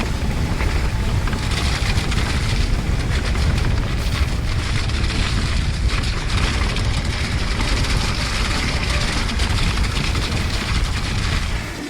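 Wind buffeting the camera microphone over a constant low rumble, with the electric mountain bike rattling over many short knocks as it rides down a wet, rocky trail.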